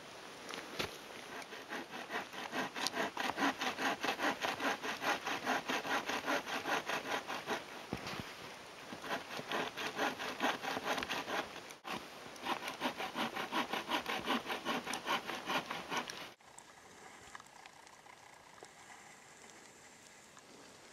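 Sawvivor backpack bow saw cutting through a dead log in quick, even back-and-forth strokes, several a second, pausing briefly a few times and stopping about sixteen seconds in.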